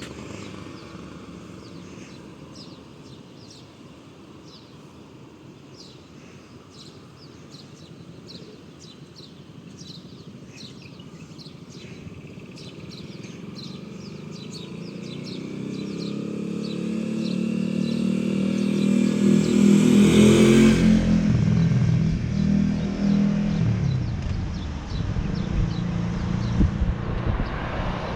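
Birds chirping, then a Suzuki Intruder Volusia cruiser's V-twin engine approaches, growing steadily louder, passes close with a brief rush about twenty seconds in, and keeps running steadily after.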